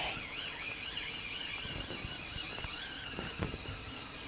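Faint outdoor ambience of a reed-lined pond: a steady high-pitched insect chirring, with a wavering whistle-like tone over it in the first half and a few soft clicks.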